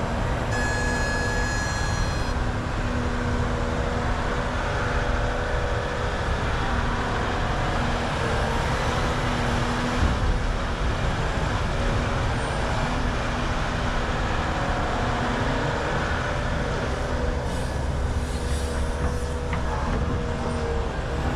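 Volvo EC550 excavator's diesel engine running steadily under load as it digs, with a brief high-pitched whine about half a second in and a heavier low rumble near the end.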